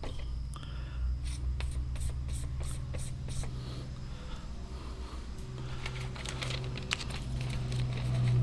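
Steel broadhead blade being hand-sharpened: quick, short, light scraping strokes in two runs, about four a second, over a low steady hum.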